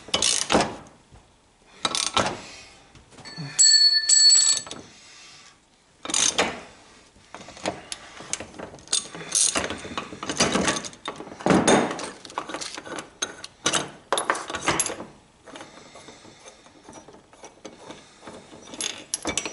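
Manual A/C hose crimper being screwed down to crimp a fitting onto an A/C hose: irregular ratchet clicks and metal-on-metal strokes as the forcing screw is turned, with a brief high squeal about four seconds in.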